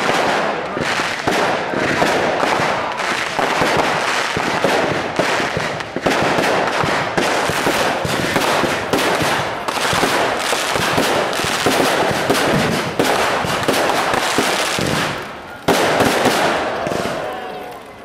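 Fireworks display: a dense, continuous run of crackling bangs from bursting shells. About fifteen seconds in it eases off, then a fresh loud volley goes off and fades away.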